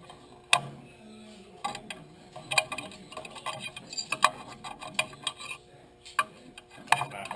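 Hand tools working at a rusty steel control arm's ball joint: pliers, locking pliers and a small screwdriver prying and gripping, giving irregular sharp metal clicks and taps.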